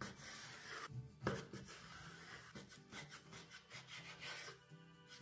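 Chef's knife slicing raw chicken breast on a bamboo cutting board: the blade draws through the meat and rubs and knocks on the wood in repeated strokes, with one louder knock a little over a second in.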